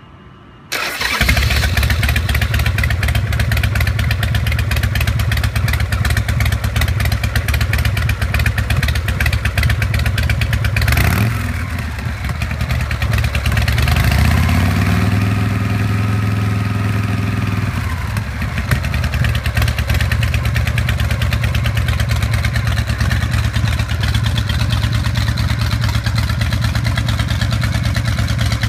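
Custom Harley-Davidson V-twin motorcycle engine starting up about a second in, then idling loudly. It gets a quick blip of the throttle around the middle and, a few seconds later, a longer rev that rises and falls back to idle.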